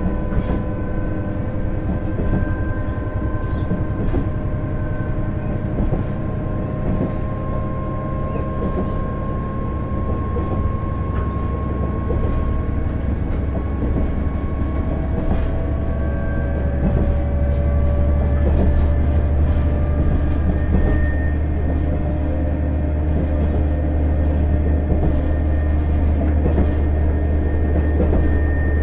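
KiHa 110 diesel railcar's engine working under power on a steep climb, a steady low drone with whining tones that drift slowly in pitch. The drone grows a little louder about two-thirds of the way through, and a few faint clicks come through.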